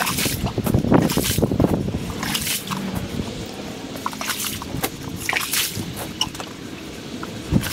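Wind buffeting the microphone in uneven gusts, stronger in the first few seconds and easing after, sped up to four times normal speed.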